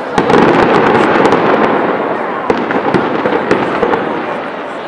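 Fireworks display: a dense crackle of many sharp pops over a continuous noisy wash. It swells loud just after the start and fades slowly toward the end.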